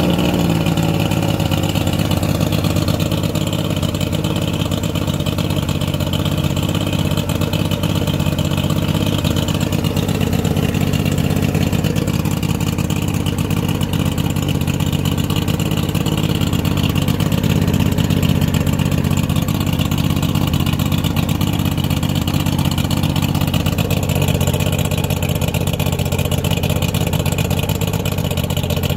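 2001 Mercury 50 hp two-stroke outboard running steadily at idle on a stand, with water splashing from its lower unit.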